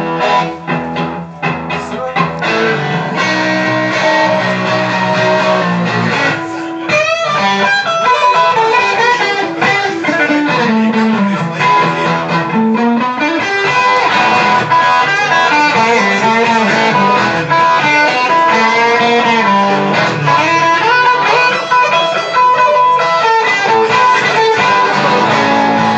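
Electric guitar played through a small Vox combo amp in a blues style: chords for the first six seconds or so, then a lead solo with bent notes and quick runs.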